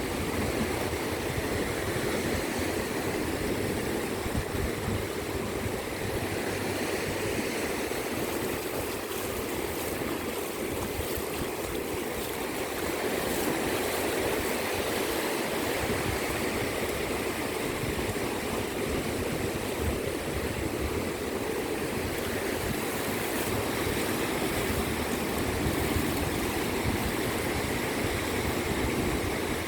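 Ocean waves washing on a beach: a steady rushing wash with no separate breaks standing out.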